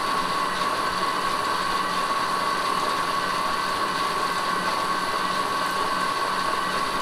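Pedal-driven bicycle generator spinning steadily under an electrical load of about 7 amps (around 100 W): an even whir with a constant high-pitched whine over a low hum.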